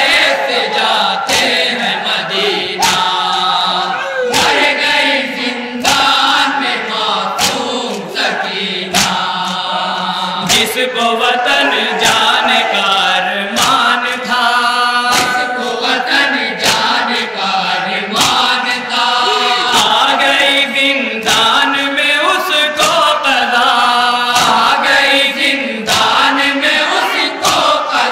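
A group of men chanting a noha (Urdu mourning lament) in chorus behind a lead reciter through a microphone, with sharp slaps of hands on chests (matam) keeping the beat every second or two.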